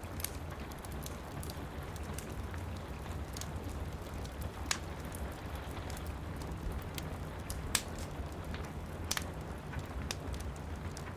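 Steady rain falling against window glass, with a low rumble under it, mixed with a wood fire in a fireplace crackling: scattered sharp pops, a few louder ones just under 5 s, near 8 s and just after 9 s in.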